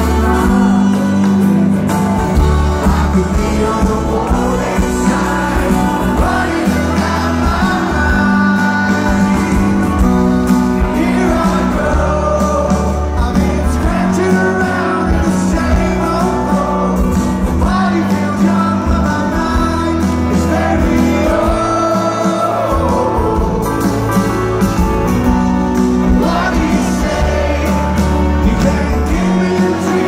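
Live rock band playing, with guitars, bass and drums under a male lead vocal singing a slow, wavering melody, picked up from within the open-air audience.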